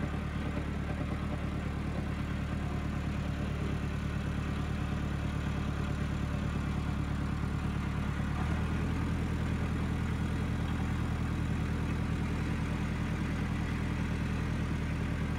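Farm tractor's diesel engine running steadily at low revs; about eight and a half seconds in, its note settles into a steadier, fuller drone.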